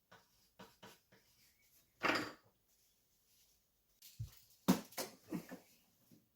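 Irregular knocks and clatter with a short scrape about two seconds in, and a busier run of louder knocks near the end: tools and gypsum board being handled during drywall work.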